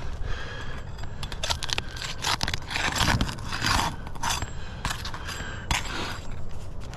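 Repeated scraping strokes on roof shingles as a shingle is worked loose for replacement, with a few sharper clicks among them.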